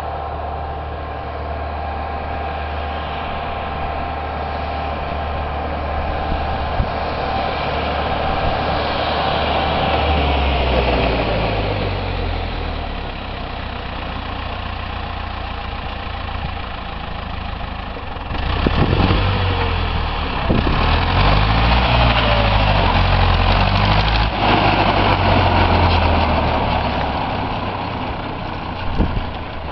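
Deutz 6005A tractor's air-cooled four-cylinder diesel running as the tractor drives by. It grows louder as it comes closer, and from about two-thirds of the way through it is louder still, with the engine speed rising and falling.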